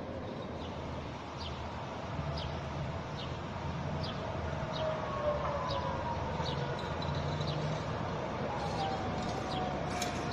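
Electric tram's motor whine, two long tones falling slowly in pitch from a little before the middle onward as the tram approaches, over a low rumble of running gear. Short high chirps come and go on top.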